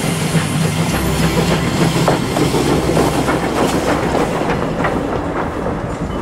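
Train running along the track, its wheels clicking and clanking irregularly over the rail joints.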